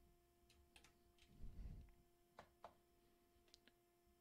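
Near silence with a few faint clicks of buttons being pressed on a Eurorack sequencer panel and a soft low thump about one and a half seconds in, over a faint steady hum.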